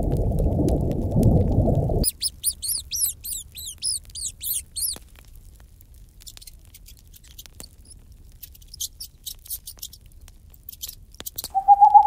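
A low rushing noise stops abruptly about two seconds in. A rapid run of high, squeaky chirps follows, then faint crisp clicks of a pet rat nibbling food. Just before the end an owl begins a long, steady hoot.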